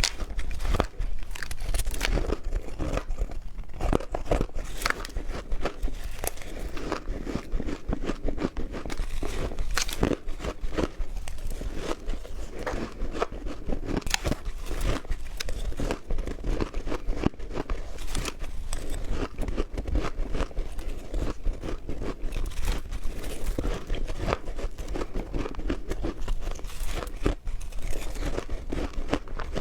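Close-up ice eating: crunchy ice being bitten and chewed, with a dense run of sharp cracking crunches throughout.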